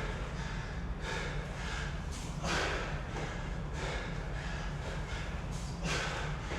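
A person breathing hard under exertion, with loud forceful exhales every one to two seconds over a steady low hum.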